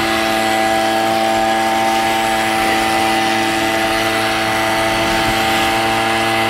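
Steady machine motor hum at an unchanging pitch, heard from inside an inflatable water-walking ball.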